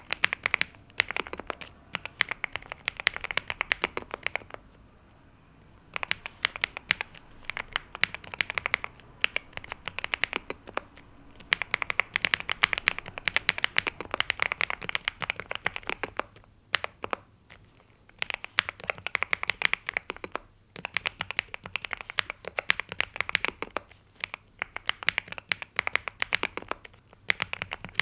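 Typing on a NuPhy Gem80 mechanical keyboard with NuPhy Mint linear switches and double-shot PBT mSA keycaps: fast runs of key clicks. The runs break off for a second or so about five seconds in and again about seventeen seconds in, with shorter breaks later.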